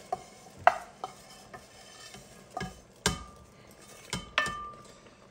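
A wooden spatula scraping crumbly roux out of a stainless steel pan into a pot of chicken stock: a series of sharp knocks and scrapes of wood on metal, two of them leaving a brief metallic ring.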